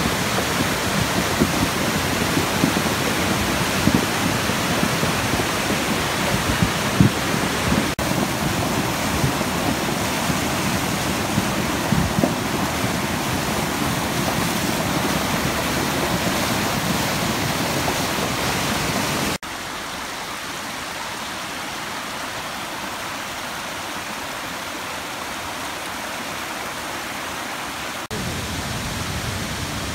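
A creek in full flood rushing loudly in a churning torrent, with deep knocks and thuds through the first dozen seconds from huge boulders being washed down the bed. A little past halfway the rush drops to a quieter, thinner sound, then steps up louder again near the end.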